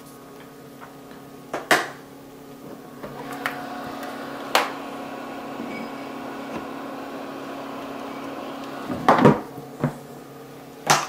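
Handling sounds at an electric egg incubator: several sharp knocks and clatters, the loudest cluster about nine seconds in and another at the very end, over a steady low hum from the running incubator that grows louder about three seconds in and drops back near the end.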